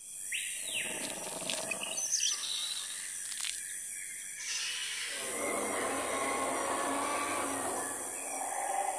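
Jungle ambience sound effect: a falling animal call near the start and a few short bird chirps, over a steady hiss that thickens about five seconds in.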